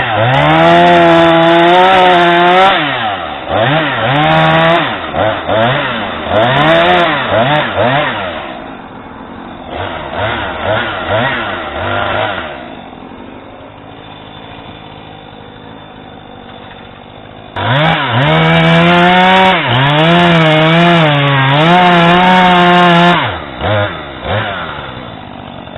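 Husqvarna 440e chainsaw's 40.9 cc two-stroke engine running at full throttle while cutting into a tree, then blipping the throttle up and down. It settles to an idle for about five seconds in the middle, cuts again at full throttle, and drops back to idle near the end.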